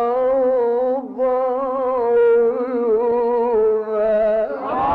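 A male Quran reciter chanting in the melodic tajweed style, drawing out long ornamented notes with a wavering pitch and brief pauses for breath. Near the end the voice stops and a crowd of listeners begins calling out.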